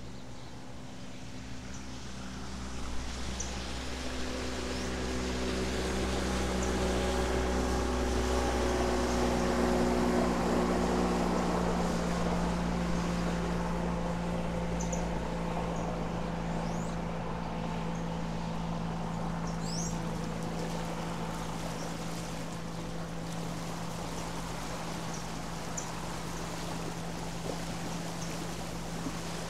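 Small motorboat's engine droning as the boat passes across the river. It grows louder over the first ten seconds or so, then slowly fades, its note dropping as it goes by.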